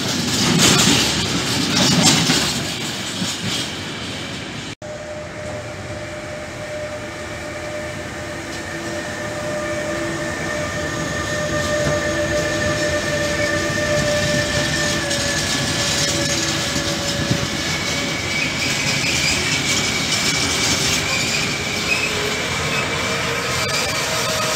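Freight trains rolling through a station. First comes the loud rattle of empty container flat wagons going by. After a cut about five seconds in, an SBB Cargo E.484 electric locomotive hauls intermodal wagons past, with steady whining tones at several pitches over the rumble of the wheels.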